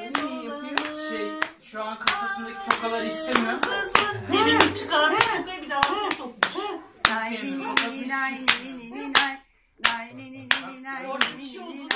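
Hand clapping in a steady rhythm, with singing over it; both break off briefly about three-quarters of the way through, then resume.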